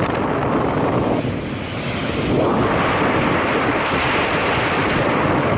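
Loud, steady rush of storm wind, partly buffeting the microphone; it eases briefly between about one and two and a half seconds in.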